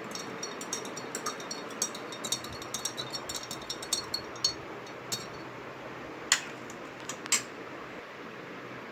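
Spoon stirring lemonade in a glass container, clinking against the side in quick light strokes for about four and a half seconds, then a few louder single clinks.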